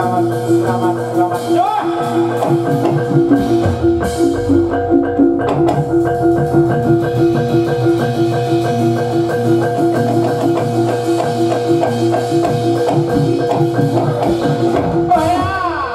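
Gamelan playing jathilan accompaniment: metallophones strike a fast, evenly repeating pattern over percussion, with held tones above it.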